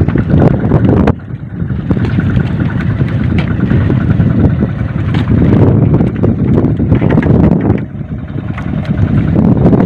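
Wind buffeting the microphone out on open water: a loud, steady low rumble that eases briefly about a second in and again near eight seconds.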